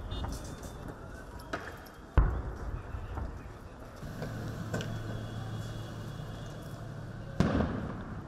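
Several sharp bangs in street noise. The loudest comes about two seconds in, and another loud one near the end rings out briefly. From about four seconds in, an armoured military vehicle's engine runs with a steady low hum.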